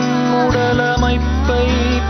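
Music: a melody of sliding, bending notes over a steady low bass.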